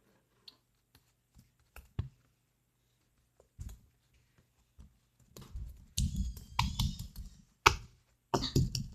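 Slime being mixed by hand in a bowl: a few scattered sticky clicks, then from about five seconds in a dense stretch of clicking and squelching, with a short burst again near the end.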